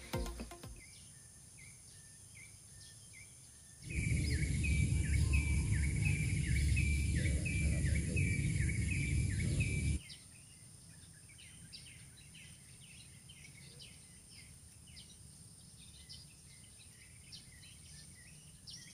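Outdoor ambience with a bird repeating a short chirp about twice a second. A loud low rumbling noise comes in about four seconds in and stops abruptly about ten seconds in, after which scattered bird chirps continue quietly.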